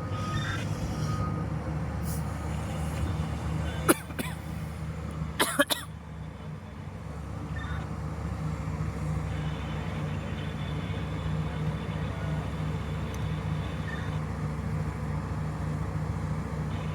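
Heavy diesel engine of mining machinery running steadily, with a sharp knock about four seconds in and a quick cluster of knocks a second and a half later.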